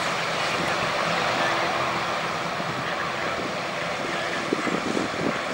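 Boeing 787-9's GE GEnx turbofan engines running at low power as the airliner taxis close by: a steady jet rush and whine with faint steady hums underneath.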